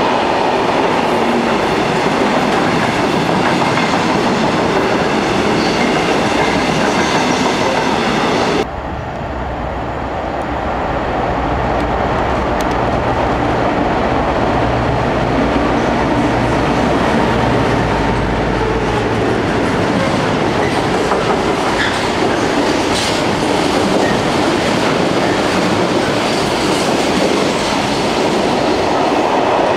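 Freight train of covered steel-coil wagons rolling past with a steady clickety-clack of wheels over rail joints. It cuts off sharply about nine seconds in, and then a Class 60 diesel locomotive's engine drones low as it comes in hauling more coil wagons, whose wheels clatter on as they pass.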